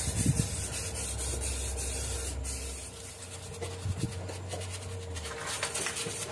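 Aerosol wheel cleaner hissing briefly onto a brake caliper, then a stiff brush scrubbing the wet caliper and disc in rapid short strokes to loosen brake dust.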